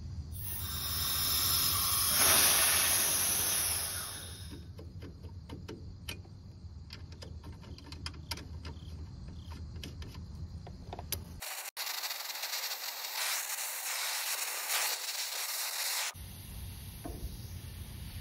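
Compressed gas hissing loudly at a hose fitting on a copper refrigerant line for about four seconds, followed by small clicks and rubbing of hands on the fittings and pipe. A second steady hiss lasts several seconds past the middle.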